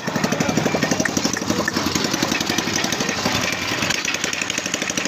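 A small engine running with a fast, even thumping beat that does not let up.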